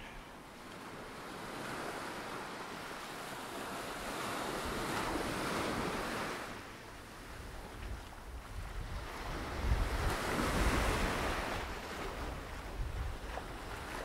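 Small waves washing up the sand and around rocks, swelling twice, at about five seconds in and again near ten seconds, with wind buffeting the microphone during the second swell.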